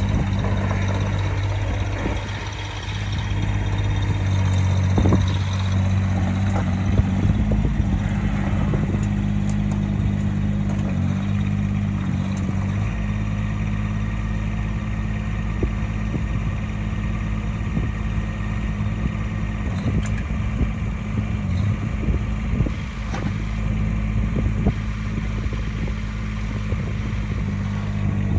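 Small Kubota diesel engine of a mini excavator running steadily under hydraulic load while the boom, arm and bucket are worked, its note sagging briefly a couple of seconds in. Occasional light knocks and clanks sound over the engine.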